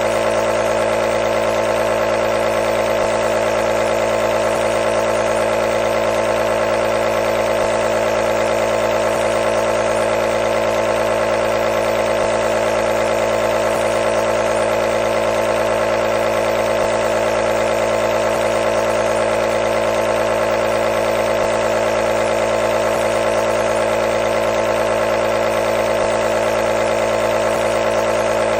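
A nebulizer running: a steady, even mechanical hum with a buzzing edge that never changes.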